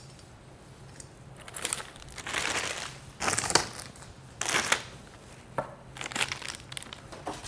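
Clear plastic packaging bags crinkling in several short bursts as the cables and stand parts sealed in them are handled.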